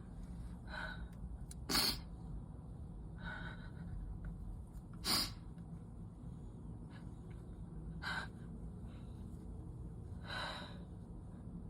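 A person with a cold or allergies sniffling and taking short, sharp breaths through a stuffy, runny nose during a sneezing fit, about six times, the strongest about two and five seconds in.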